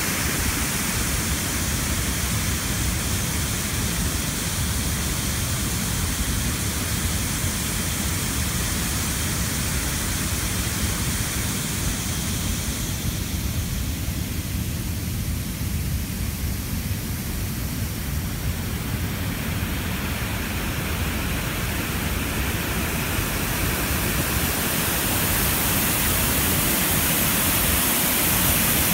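Steady rushing of water pouring over a concrete dam spillway, with a low rumble underneath. The rush grows louder and brighter in the last few seconds, as the spillway gates come close.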